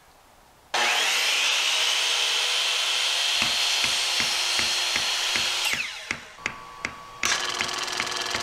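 A handheld electric power tool working ABS plastic. It spins up with a rising whine and runs steadily, with regular knocks about three a second from halfway through. It winds down about six seconds in and starts again abruptly near the end.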